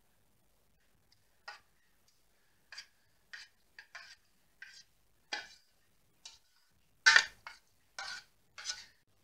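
A spatula scraping thick pudding filling out of a steel pot: about a dozen short scrapes and knocks against the pot, irregularly spaced, the loudest about seven seconds in.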